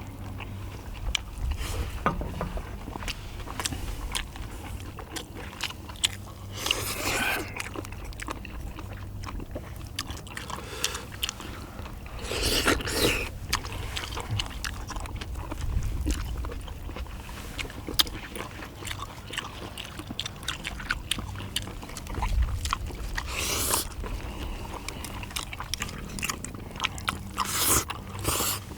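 Close-up eating sounds: chewing and biting with many small clicks, and a few longer noisy bursts about 7, 13, 23 and 28 seconds in. The food is a meal of spicy stir-fried small octopus with noodles and rice balls.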